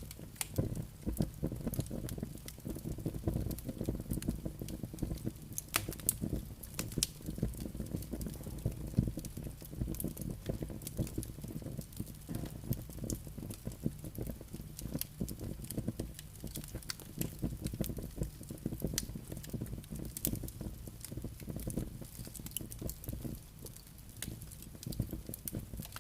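Wood fire burning in a fireplace: a steady low rumble with frequent sharp crackles and pops from the logs.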